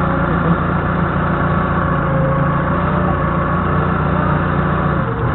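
Engine of a Doosan 4.5-tonne forklift idling steadily, heard from the operator's cab.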